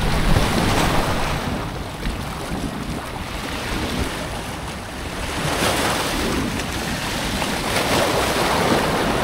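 Small waves washing and breaking against the rocks of a jetty, with wind noise on the microphone; the surf swells and ebbs several times.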